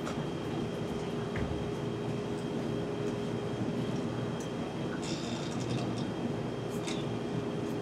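A steady low rumble with a faint constant hum in the auditorium, and a few light clicks and knocks from the stage about five and seven seconds in.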